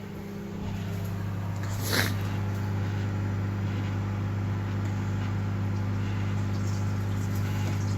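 Microwave oven running with a steady low hum while it heats butter on a plate. A short knock about two seconds in.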